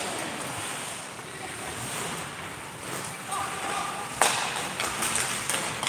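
Ice hockey play at rinkside: a steady hiss of skates on the ice, with a sharp knock about four seconds in and a few lighter clicks after it, typical of puck and stick contact.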